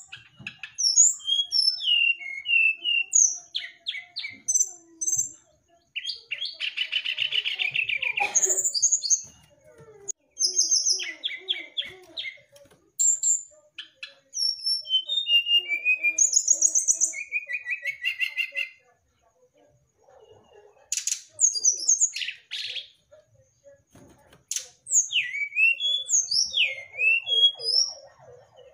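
Brown-chested jungle flycatcher singing a long, varied song of high whistled notes, quick chirps and buzzy rattling trills, broken by a couple of brief pauses.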